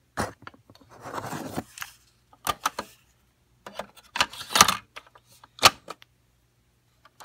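A plastic audio cassette being handled and loaded into a Sanyo dual cassette deck: a series of sharp plastic clicks and short rattles. The loudest is a single snap about five and a half seconds in.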